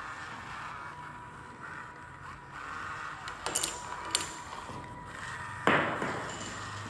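Small plastic hobby robot's geared DC drive motors whirring steadily as it drives, with a few light plastic clicks midway. About two thirds through there is a sharp clatter as a plastic domino is knocked over onto the wooden tabletop.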